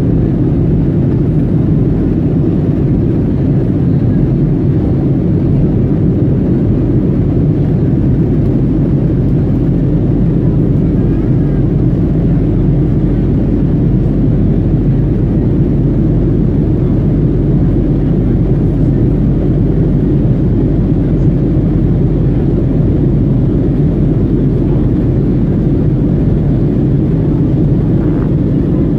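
Steady low rumble of an Airbus A321's jet engines and rushing air, heard inside the passenger cabin during the climb after takeoff.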